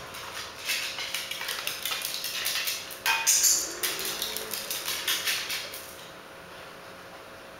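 A corgi's claws clicking and skittering on a tile floor as it runs across the room, with a louder, sharper clatter about three seconds in.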